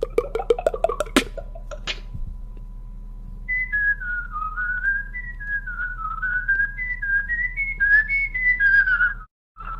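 A few sharp beatboxed clicks and hits, then a person whistling a melody whose notes step up and down. The whistle breaks off briefly near the end and picks up again on one more note.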